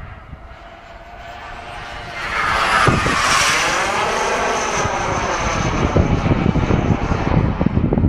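A radio-controlled model jet flies past with its turbine whining. The sound swells sharply about two to three seconds in as it comes close, then stays loud as it moves on. Wind buffets the microphone near the end.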